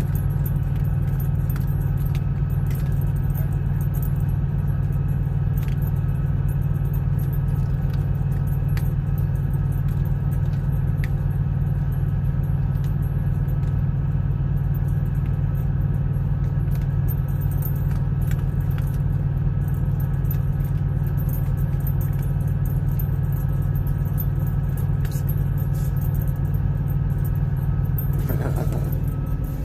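Vehicle engine idling steadily, a constant low hum, with faint scattered small clicks and jingles over it.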